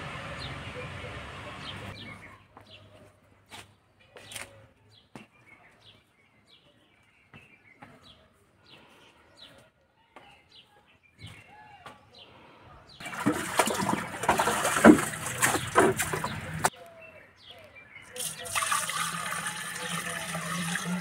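Birds chirping, then water gushing from a pipe into a clay water pot, in two spells of a few seconds with a short break between.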